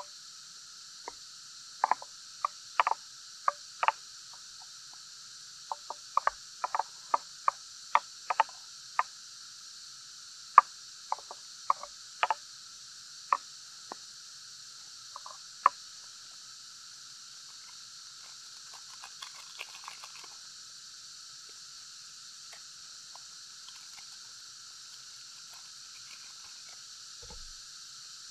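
Wooden spoon knocking and scraping against an aluminium mess tin while noodles in broth are stirred: a run of sharp irregular taps that stops about halfway through. Underneath, a steady high chorus of rainforest insects.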